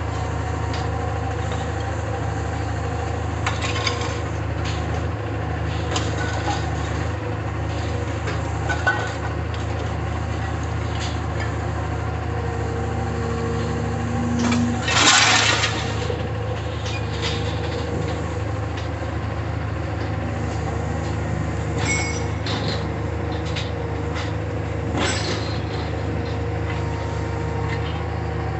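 Diesel engine of a Caterpillar wheeled material handler running steadily, with scattered clanks of scrap metal. About halfway a loud crash of about a second as a load of scrap drops into the steel gondola car.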